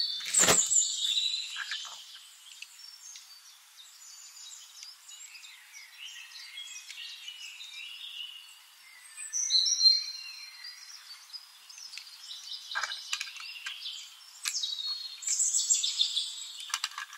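A toy tractor and trolley being handled and fitted together: light plastic clicks and rattles, with a sharp knock about half a second in. Short high chirps run through the background.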